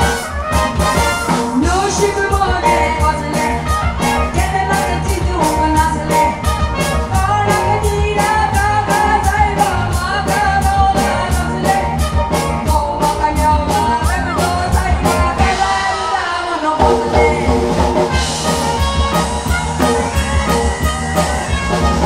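Live band music with a woman singing into a microphone through the PA over a steady beat. The beat's percussion drops out about three-quarters of the way through while the music carries on.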